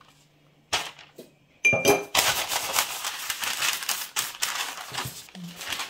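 A short ringing clink, then butter (parchment) paper crinkling and rustling loudly as hands spread and smooth the sheets.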